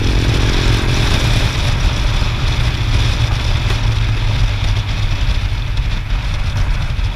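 Wind rush and engine rumble from a motorcycle riding at road speed, picked up by a camera mounted on the bike. A steady engine tone fades out in the first second or so, leaving wind noise and low rumble.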